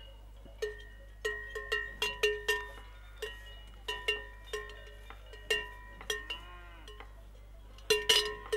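Cowbells on grazing cattle clanking irregularly, each strike ringing on briefly, with several bells sounding in quick clusters and the loudest clanks near the end.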